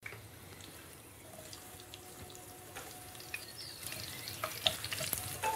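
Food sizzling in oil in a frying pan, stirred with a wooden spatula that gives scattered small clicks and scrapes. The sizzle grows louder toward the end.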